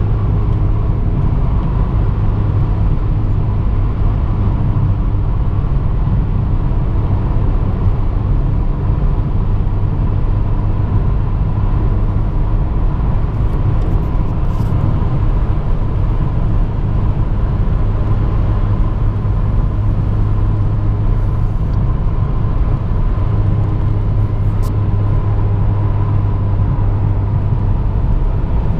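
A car cruising at steady highway speed, heard from inside the cabin: a constant low rumble of engine and tyres on the road, with a faint steady hum above it.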